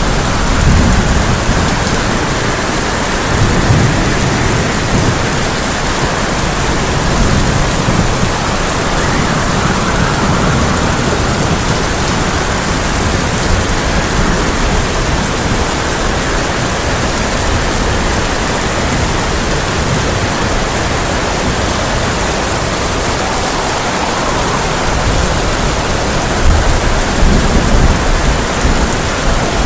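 Heavy rain pouring on a tin roof, a dense steady hiss. Low thunder rumbles roll in about a second in, again a few seconds later, and once more near the end.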